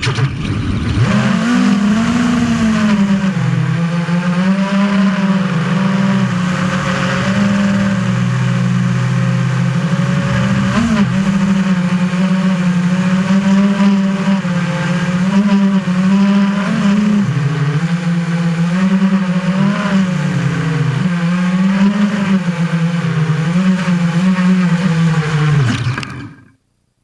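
FPV quadcopter motors and propellers whirring from an onboard camera, the pitch rising and falling with throttle. The sound cuts off abruptly near the end.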